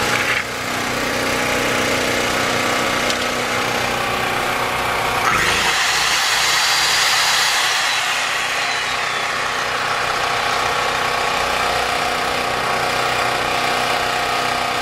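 Champion 3500-watt portable generator's engine running steadily. About five seconds in, a brighter, higher-pitched whirring layer joins the engine sound and carries on.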